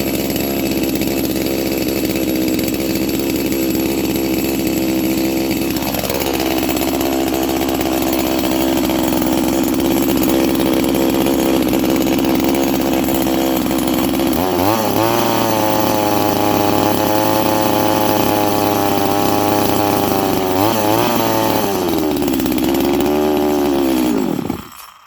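Farmertec G255 two-stroke chainsaw running on its first start: a steady idle, then the engine speed rises and wavers unevenly in the second half before the engine stalls abruptly near the end. The owner suspects it sucked up air.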